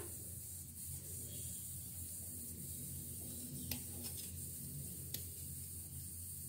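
A knife scraping and breaking bits off a lump of jaggery: a few soft clicks over a faint, steady low hum.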